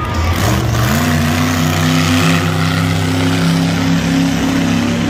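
Monster truck engine revving up about a second in, then held steady at high revs.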